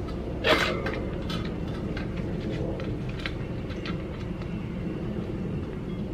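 Steady low rumble of an air compressor running, ready to put a little air into the motorcycle inner tube so it is less likely to pinch. A short noisy burst comes about half a second in, and a few faint clicks follow.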